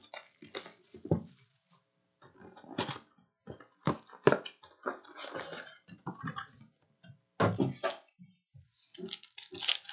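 Plastic shrink wrap crinkling and tearing off a trading-card box, then cellophane-wrapped card packs rustling as they are pulled out and stacked, in irregular crackling strokes with a few louder knocks.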